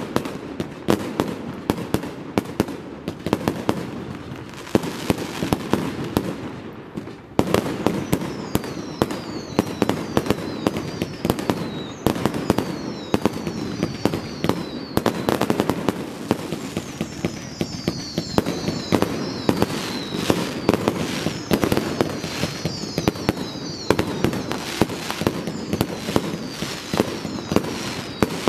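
Fireworks display going off overhead: a dense, rapid run of bangs and crackling pops. About a quarter of the way in it grows louder, and high whistles that fall in pitch repeat over the bangs.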